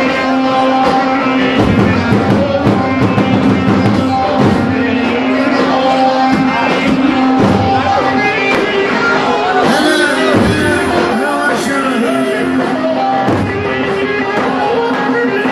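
Amplified live band music played for a halay line dance, loud and continuous, with held melody notes.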